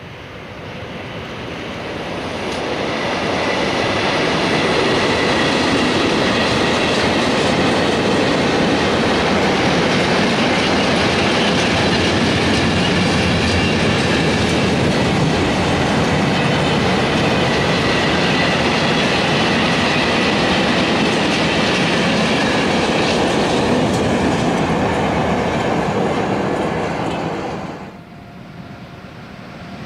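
Freight train hauled by an FS E652 electric locomotive passing close by, its wagons clattering steadily over the rails. The noise builds over the first few seconds and cuts off sharply as the end of the train goes by near the end.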